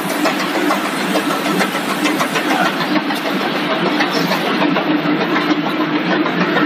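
Popcorn processing line machinery running with a steady hum, under a continuous patter of small ticks from popped kernels tumbling down a stainless steel chute onto an inclined flighted conveyor.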